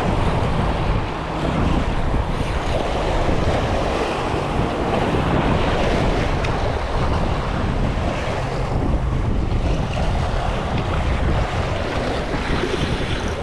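Wind buffeting the microphone over the steady wash of waves against a rock jetty.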